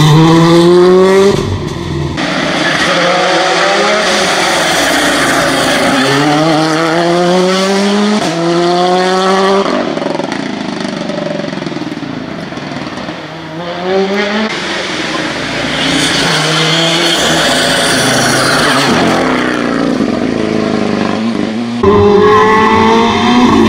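Hyundai i20 rally car's engine pulling hard through the gears, its pitch rising on each pull and dropping at each gear change, several times over, with tyre noise underneath. It eases off for a while about halfway through.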